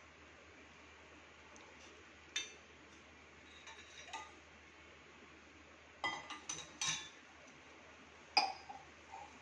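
Metal kitchen utensils clinking against a cooking pot in scattered sharp clinks: one about two seconds in, a few softer ones around four seconds, a quick flurry around six to seven seconds, and a sharp one near the end followed by lighter taps.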